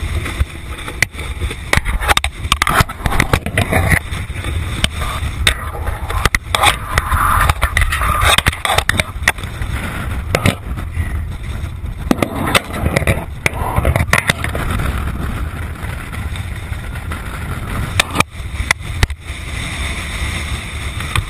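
Wind buffeting the microphone of a body-worn camera, a heavy steady rumble, with irregular scraping, rustling and knocks as hands handle a sheep tangled in a wire fence.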